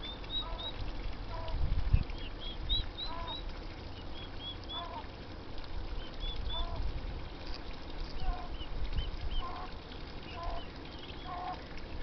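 Poults peeping: short high chirps about once a second, with lower short calls mixed in.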